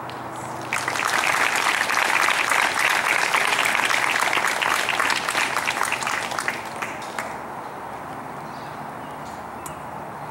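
Audience applauding. The clapping starts suddenly about a second in and dies away after about six seconds.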